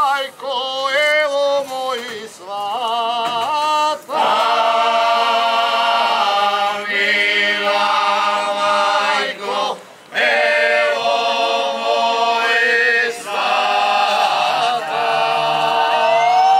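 A group of men singing unaccompanied in the traditional ojkanje style of the Croatian Ravni Kotari hinterland: long held notes with a shaking, wavering voice, sung in phrases with short breaths between them.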